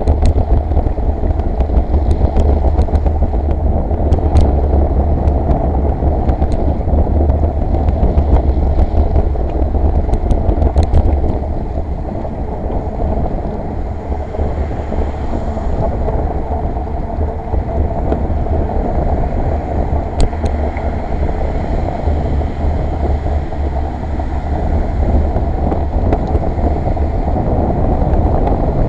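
Steady low wind and rolling rumble from a camera travelling along a wet bike lane, with a few sharp clicks and rattles from bumps in the path. It eases a little partway through and picks up again near the end.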